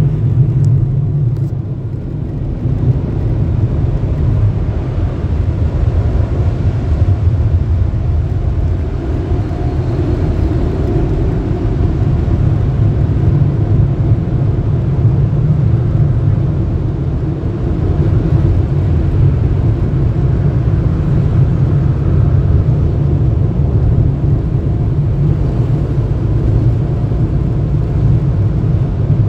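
Car wash dryer blowers running, a loud, steady rumble of rushing air heard from inside the car.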